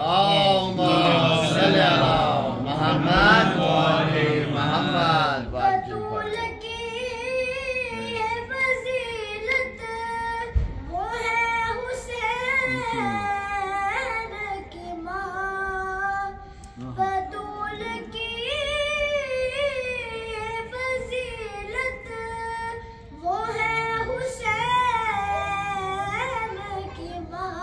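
A boy's unaccompanied voice singing an Urdu devotional kalam into a microphone, in melodic phrases with short pauses between lines. During the first five seconds several voices sing together before the single voice carries on alone.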